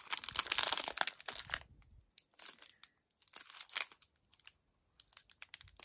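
Chocolate-bar wrapper crinkling and tearing as it is peeled open by hand. The crackle is dense for the first second and a half or so, then thins to scattered crinkles as the bar is worked out of the wrapper.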